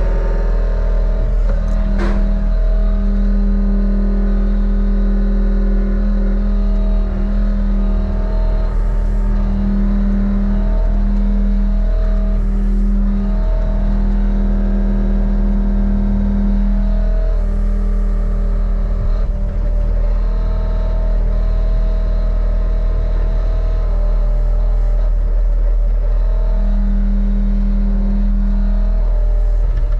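Heavy diesel equipment running steadily at a work site, with a hum that cuts in and out every few seconds over the engine's low rumble.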